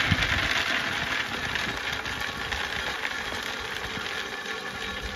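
A vehicle engine running steadily at idle.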